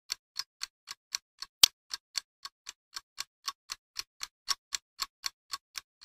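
Clock ticking sound effect: sharp, evenly spaced ticks at about four a second, one tick noticeably louder nearly two seconds in.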